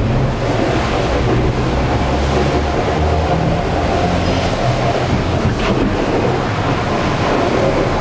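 Rushing water and wind on the hull of the maxi-trimaran Banque Populaire 5 sailing fast, heard from inside the boat as a steady loud rush with a deep rumble underneath.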